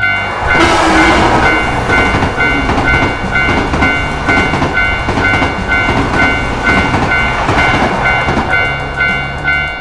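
Japanese railroad crossing warning bell ringing its repeating two-tone "kan-kan" at about two strokes a second, while a train rushes past with clattering wheels on the rails.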